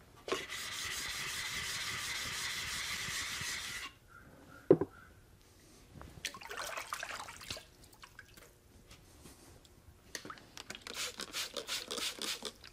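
Workshop clean-up after honing a plane blade. A steady hiss lasts about three and a half seconds and cuts off abruptly, then comes one sharp click. After that, rubbing and wiping sounds, with a run of quick strokes near the end.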